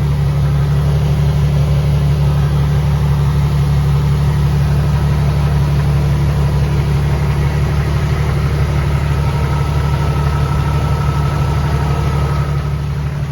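Fuel-injected 4.2-litre inline-six of a 1983 Jeep CJ7 idling steadily with a low, even hum.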